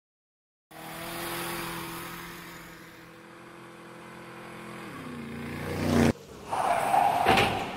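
Car engine running steadily, then dropping in pitch and swelling louder until it cuts off abruptly. A loud noisy burst follows near the end: the car crash of the accident.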